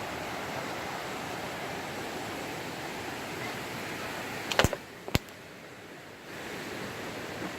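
Steady rush of flowing water from a stream or waterfall. Two sharp clicks come about four and a half and five seconds in, after which the rushing is quieter for a second or so before it returns.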